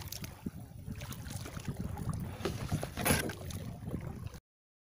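Kayak on open water: water lapping at the plastic hull and wind rumbling on the microphone, with a short louder splash about three seconds in. The sound cuts off abruptly near the end.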